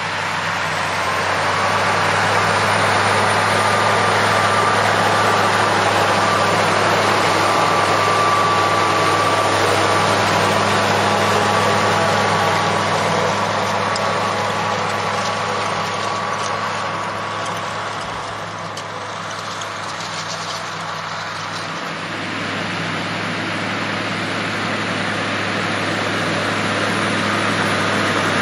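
Scania V8 diesel in a Steiger Cougar tractor working under load while pulling a cultivator: a steady low engine drone with a thin high whine over it. It grows louder over the first few seconds, eases off somewhat past the middle, then builds again.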